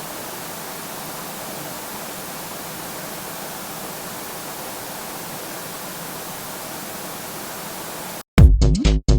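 A steady hiss like static, which cuts off abruptly about eight seconds in. Loud electronic dance music then bursts in with stuttering beats.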